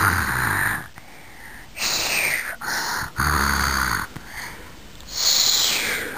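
A young child fake-snoring in play: four snores about a second long each, spaced a second or two apart, some buzzing low and some with a wheezy hiss.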